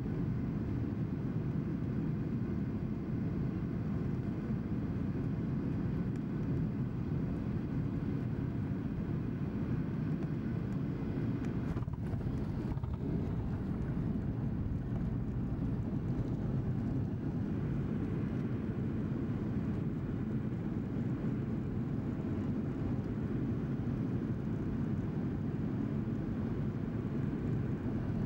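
Boeing 737-800 heard from inside the cabin over the wing during landing: a steady low rumble of engines and airflow, through the last moments of the approach, the touchdown and the rollout down the runway with the ground spoilers up.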